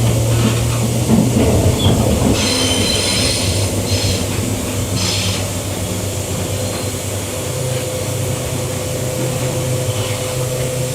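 Queensland Rail electric multiple unit train running, with a steady low rumble and hum. Its wheels squeal high-pitched in a few short bursts between about two and five seconds in.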